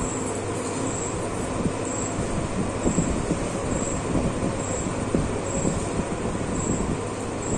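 Steady fan noise, with soft bumps and cloth rustling in the middle as a saree is lifted and shaken out.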